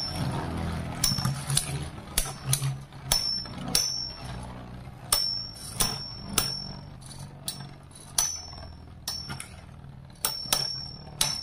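Two metal Beyblade spinning tops whirring in a plastic stadium, clashing again and again. Each sharp metal-on-metal hit rings briefly at a high pitch, coming roughly every half second to second.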